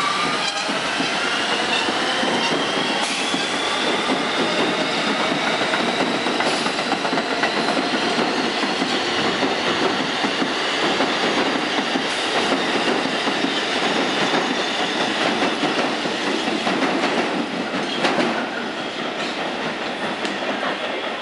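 R160B Siemens subway train pulling away past the platform: its motors whine, rising in pitch over the first few seconds, over steady wheel-on-rail rolling noise with a few sharp clacks from rail joints. It grows quieter over the last few seconds as the last car passes.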